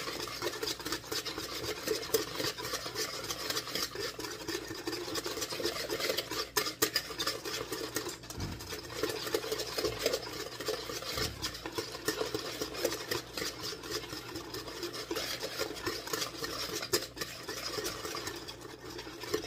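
Whisk beating a tomato-paste and olive-oil sauce in a plastic mixing bowl: rapid, steady clicking and scraping.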